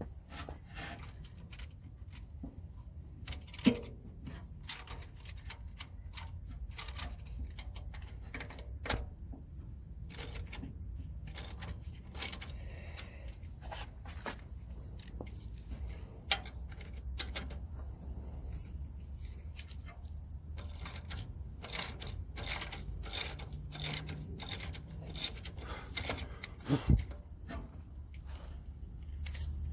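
Hand tools working bolts on an engine: scattered metallic clicks and clinks of a wrench and ratchet, with a run of quick clicks a little after twenty seconds in, over a steady low hum.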